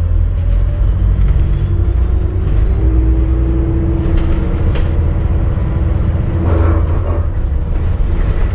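ADL Enviro400 MMC hybrid double-decker bus under way, heard from on board: a loud, steady low rumble with a held whine through the middle, and a brief rattle about six and a half seconds in.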